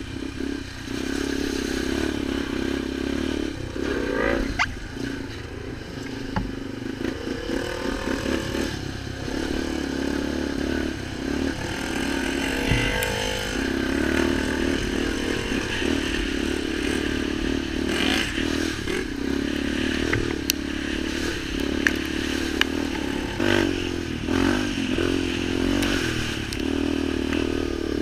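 Off-road vehicle engine running under way, its pitch dropping and rising a few times as the throttle changes, with rattling and scraping from the ride and occasional sharp clicks.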